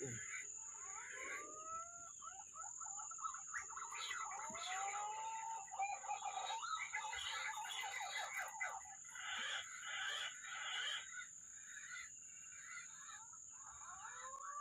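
Wild birds calling: several rising whistled notes among dense chirping, thinning out in the last few seconds, over a steady high-pitched whine.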